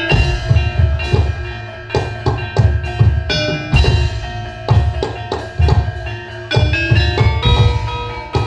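Javanese gamelan playing for a hobby-horse (kuda lumping) dance: hand drums beating a rhythm with deep low strokes, while bronze metallophones and gongs ring out steady struck notes.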